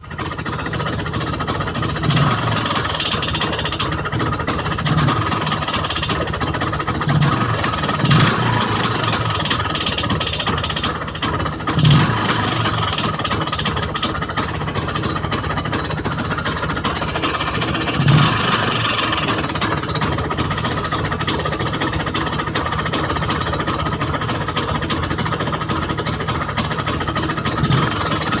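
IZh Planeta motorcycle's single-cylinder two-stroke engine running with a knock, the fault the owner is showing. It swells briefly several times, at about 2, 8, 12 and 18 seconds and near the end.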